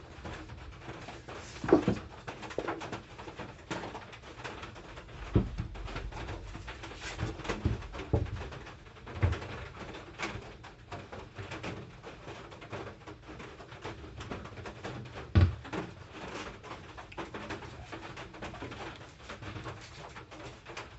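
Wooden boards being handled and set against each other, with several sharp knocks of wood on wood, the loudest about two seconds in and again past the middle. A pigeon cooing in the background.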